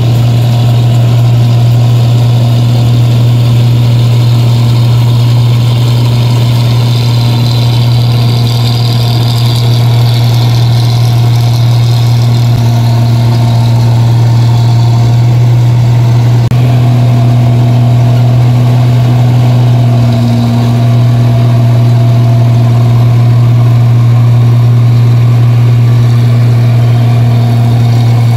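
New Holland Clayson 1545 combine harvester running steadily as it harvests rice, its engine giving a loud, even drone with a strong low tone.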